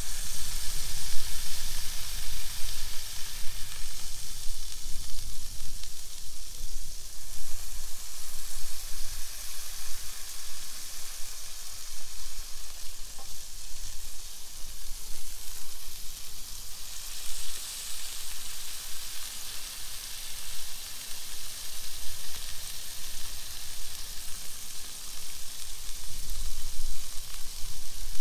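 Smash burger patties sizzling on a Blackstone flat-top griddle, a steady crackling fry as they brown on the bottom. The sizzle turns sharper about two-thirds of the way through.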